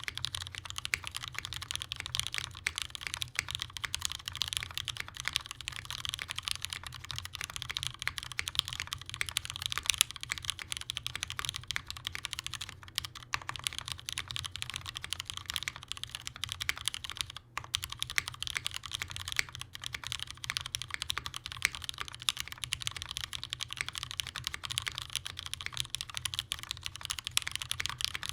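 Continuous fast typing on a custom 65% mechanical keyboard: Cherry Nixie switches lubed with Krytox 205g0 and filmed, on an aluminium plate with no foam, under GMK doubleshot keycaps. Keystrokes come in a dense stream, several a second, with one brief pause about two-thirds of the way through.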